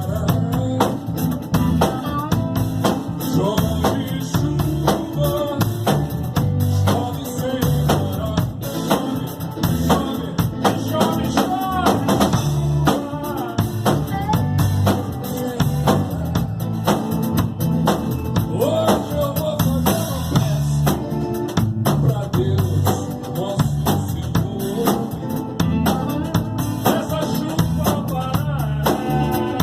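A band playing live: a drum kit keeps a steady beat under a bass line and a wavering melody line.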